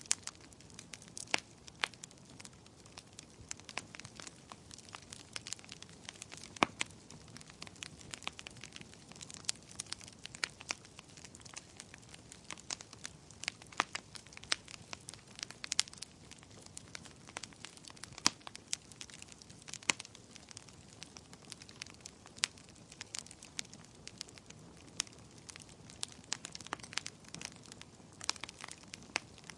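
Wood fire burning, with a continual irregular crackle of sharp snaps and pops over a soft steady hiss.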